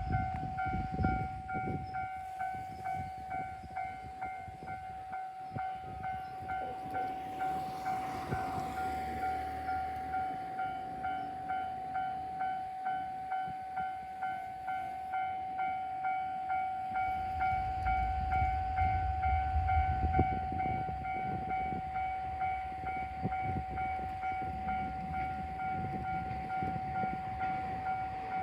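Japanese railway level crossing's electronic warning bell ringing, an even pulsing ding a little over once a second. A low rumble builds in the second half.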